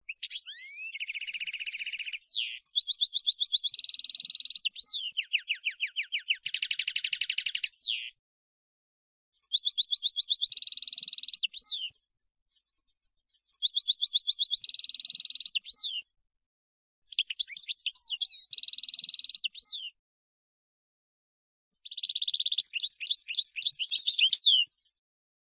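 European goldfinch song: five bursts of fast twittering trills, buzzy notes and quick downward sweeps, separated by silent gaps of one to two seconds.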